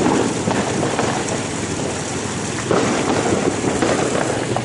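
Many distant New Year fireworks and firecrackers going off together, a continuous dense crackling with swells and a few sharper pops.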